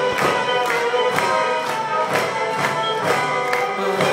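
Symphony orchestra playing an upbeat piece with held instrument tones over a steady percussion beat of about two strikes a second.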